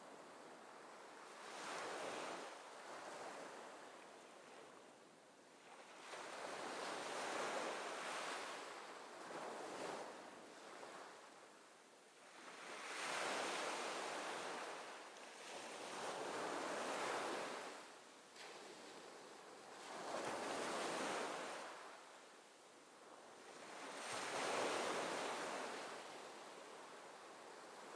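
Ocean waves washing in: a rushing hiss that swells and fades about seven times, every three to four seconds.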